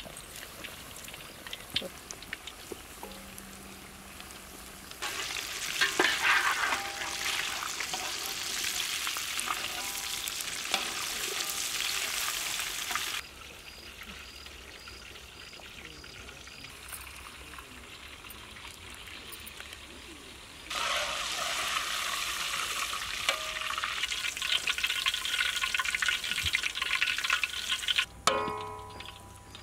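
Battered chicken wings deep-frying in hot oil in a karahi: a loud, crackling sizzle. It comes in two stretches of several seconds each, starting and stopping abruptly, with a quieter stretch between them.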